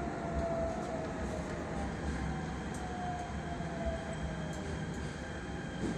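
Jakarta MRT train heard from inside the carriage, running over the track with a steady low rumble as it slows into a station. Its electric motor whine falls slowly in pitch as it brakes.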